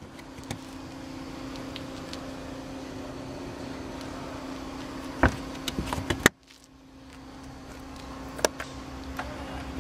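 Knocks and clicks from the trunk of a 2012 Mercedes-Benz E63 AMG as the cargo floor panel is lifted and handled, a few sharp ones about five to six seconds in, over a steady low hum. Near the end a click from the lid's button is followed by the hum of the power trunk lid's motor.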